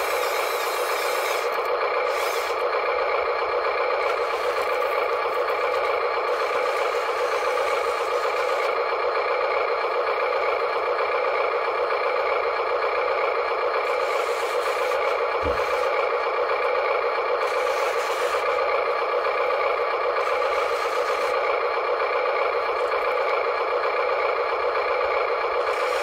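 Huina radio-controlled model wheel loader running, a steady whir of its small electric drive and gear motors, with one brief low thump about fifteen seconds in.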